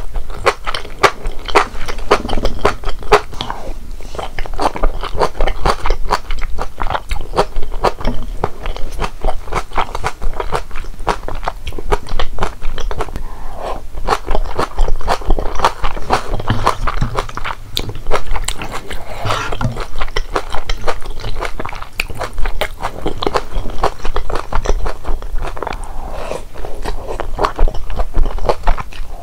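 Close-miked chewing and biting of mala tang, a spicy Sichuan soup with corn noodles, dried tofu and shrimp balls: a dense, unbroken run of mouth clicks.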